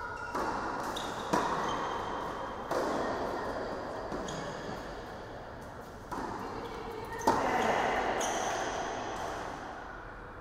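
A tennis ball struck hard with a racket on an indoor hard court, each hit echoing through the hall. The two sharpest hits come about a second in and about seven seconds in, with softer knocks in between.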